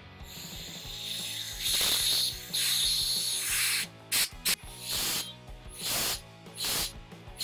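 Compressed-air blow gun hissing through a small homemade venturi block, drawing liquid up a tube from a glass and spraying it out: one long blast of about three and a half seconds, then several short bursts. Background music runs underneath.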